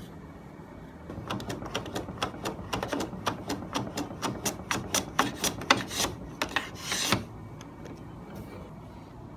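Japanese hand saw cutting a thin wooden strip with quick rasping strokes, about three or four a second. The strokes start about a second in and stop after some six seconds, ending with one longer, louder stroke.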